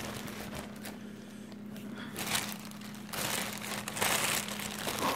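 Crinkling and rustling of live crawfish in their sack being handled and sorted through, over a steady low hum.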